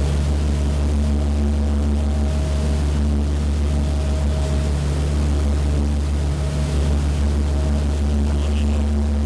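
A passenger boat's engine drones steadily as a low, even hum, heard from on board while the boat is under way.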